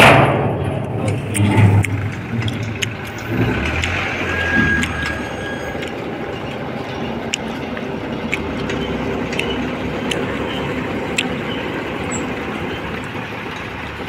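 Ashok Leyland dump truck's diesel engine running, louder and rougher for the first couple of seconds, then settling to a steady run with a few faint clicks.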